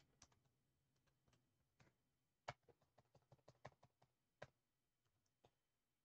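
Faint computer keyboard keystrokes: a few scattered clicks, then a quick run of about a dozen key taps in the middle.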